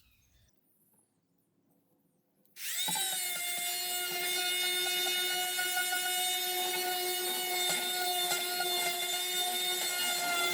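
Near silence, then about two and a half seconds in an electric power sander's motor starts. Its whine rises quickly in pitch and then runs steady.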